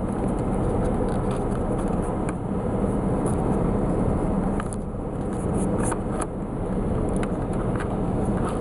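Steady low vehicle rumble, with a few faint clicks as a bulb socket is twisted out behind a dashboard control panel.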